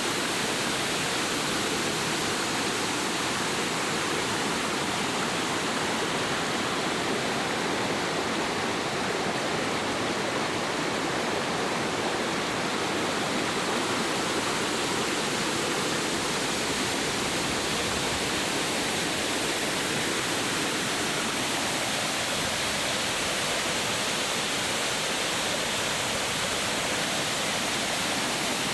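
Rain falling steadily in a storm, an even, unbroken hiss.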